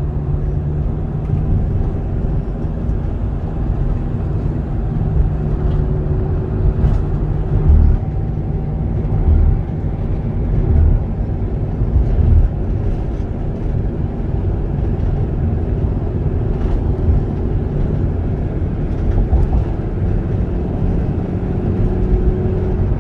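Steady low rumble of engine and tyre noise inside a moving road vehicle, with a few held engine hum tones that shift in pitch now and then.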